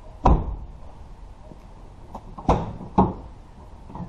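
Chevrolet Silverado pickup tailgate swung shut, its latch catching with a clunk just after the start, followed by two more knocks on the tailgate about half a second apart.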